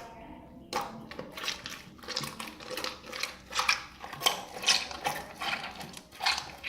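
Soft slime wet with a little water being kneaded and stirred by hand, giving a run of short squelches and clicks, about two a second, beginning about a second in.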